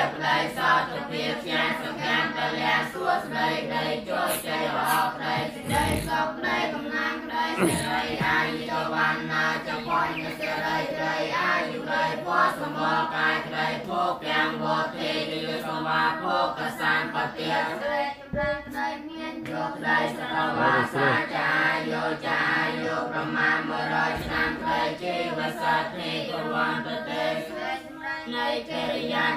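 Buddhist chanting: many voices chanting together in a steady, droning recitation with no pauses.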